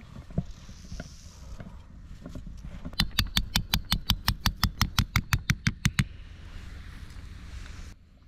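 A fast, even run of about twenty sharp knocks, about seven a second, lasting about three seconds in the middle, between quieter handling sounds.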